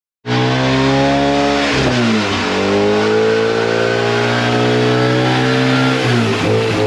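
Loud car engine accelerating through the gears, its pitch dropping at a gear change about two seconds in and again near the end, then climbing. It starts and cuts off abruptly.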